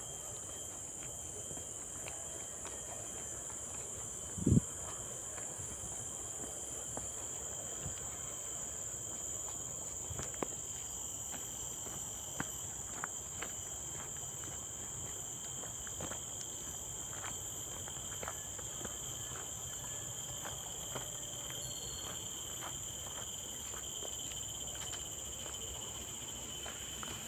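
Steady, high-pitched chorus of forest insects droning throughout, over scattered footsteps on a dirt trail. A single loud thump about four and a half seconds in.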